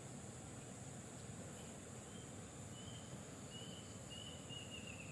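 Faint riverside ambience: a steady high insect buzz over low background noise, with a bird giving a series of short whistled notes from about two seconds in, the last ones longer.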